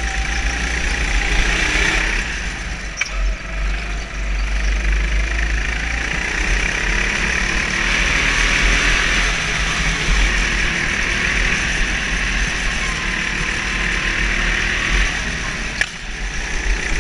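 Go-kart engine heard from the onboard camera as the kart laps the track, its note swelling and easing every few seconds through the corners, over a heavy low rumble of vibration and wind on the microphone. Two sharp knocks, one about three seconds in and one near the end.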